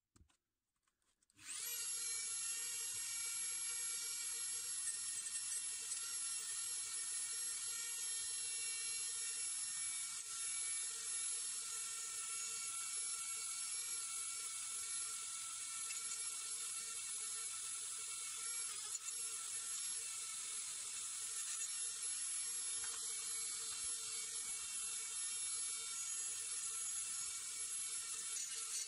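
A steady machine whine with a hiss. It starts suddenly about a second and a half in and then holds unchanged.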